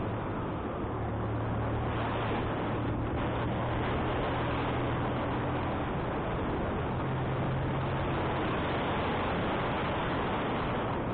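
Wind rushing over the microphone of a motorcycle riding uphill, with the engine's low, steady hum underneath; the engine note rises briefly about seven seconds in.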